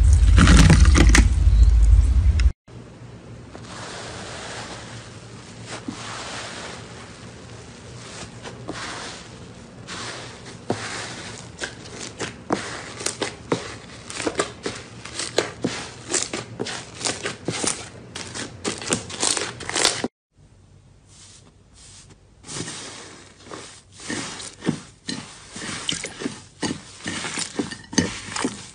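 Slime being squeezed and poked by hand, giving dense, irregular small crackling pops and clicks, in clips cut together. A loud low rumble fills the first two seconds or so.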